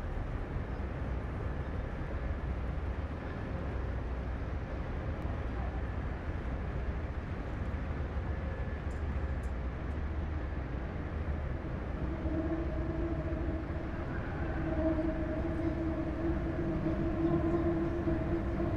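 Steady low rumbling noise drone, with a long held pitched tone and its overtones joining about twelve seconds in.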